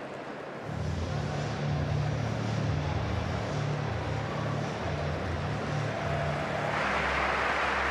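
Stadium crowd murmur with a low pulsing rumble coming in about a second in. Near the end the crowd noise swells louder as the pole vaulter gets ready for her run-up.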